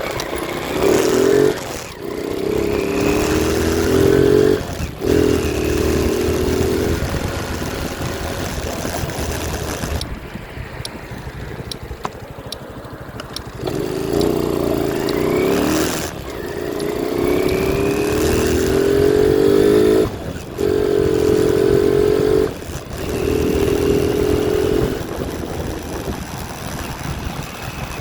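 Honda Super Cub 110's single-cylinder four-stroke engine, breathing through a newly fitted pod air filter, pulling on a test ride. It rises in pitch through each gear, with short dips at the gear changes, over steady wind noise and some vibration from the phone mount.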